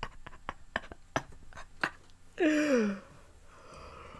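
Silly vocal noises from a man: a run of irregular sharp clicks, then about two and a half seconds in a short breathy whine that falls in pitch, followed by a faint hiss of breath.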